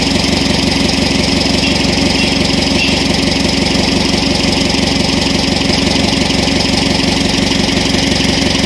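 Isuzu 4HL1 four-cylinder diesel engine idling steadily on its reconditioned injectors, with a fast, even firing beat.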